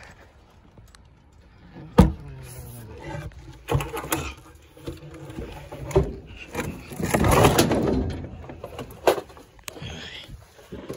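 Wooden furniture being handled and loaded onto a metal dump-trailer bed: irregular knocks and thuds, the loudest a sharp bang about two seconds in. A longer, rough, noisy stretch follows a little past the middle.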